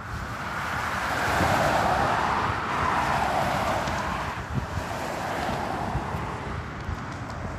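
Road traffic passing on a highway: the tyre and engine noise of a car swells over the first couple of seconds and then fades.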